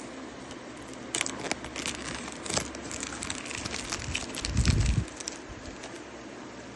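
Crinkling and crackling of a Sonny Angel Hippers blind-box's packaging being handled and opened, with a dull low thump a little before five seconds in. The crinkling stops after about five seconds.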